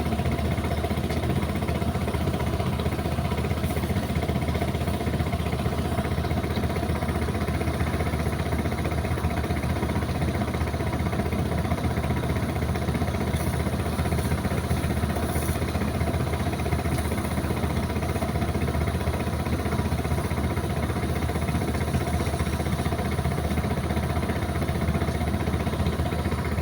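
An engine idling steadily, an even drone that does not change.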